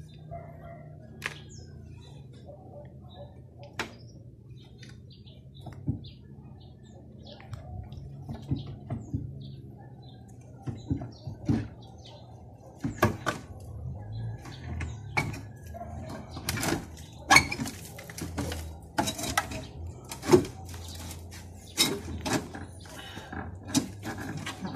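Metal clinks and knocks of hand tools working under the rear of a VW Beetle as its engine is unbolted for removal. They are sparse at first and come thick and fast in the second half, over a steady low hum.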